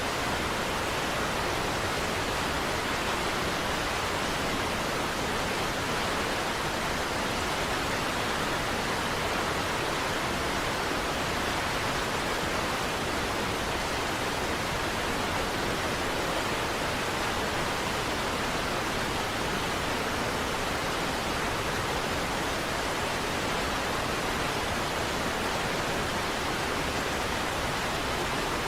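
Large waterfall rushing as a steady, even roar of water without change or break.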